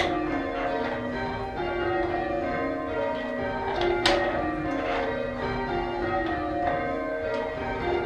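Church tower bells being rung in changes, each bell striking in turn in a steady, even rhythm, with a sharp click about halfway through.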